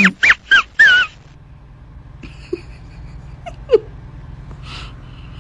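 An animal's calls: a quick run of sharp, high calls, about five in the first second, then a low steady hum with a couple of faint short squeaks.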